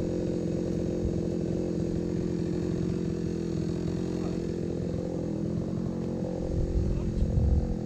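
Small gasoline engine running at a steady speed. It swells louder and lower for about a second near the end.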